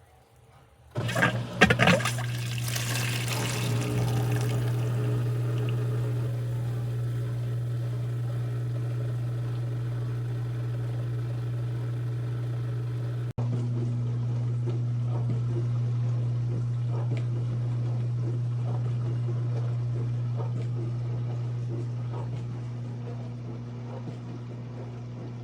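A COMFEE' portable countertop dishwasher starts about a second in with a burst of spraying water, then runs on with a steady low pump hum and water spraying and sloshing inside. The sound breaks off abruptly about halfway and resumes.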